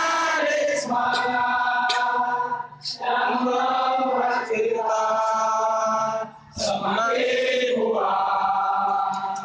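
Many voices singing a slow anthem together, holding long steady notes in three phrases of about three seconds each, with brief breaks between them.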